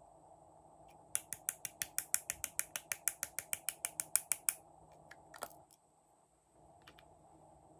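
Small plastic toy dispenser ratcheting as its top is twisted to shake out glitter: a rapid, even run of plastic clicks, about seven a second, lasting some three and a half seconds, then one last click.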